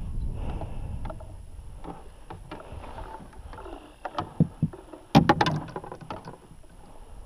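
Water splashing and sloshing beside a boat as a hooked musky is brought to a landing net held in the water, with scattered knocks and a louder burst of splashing about five seconds in.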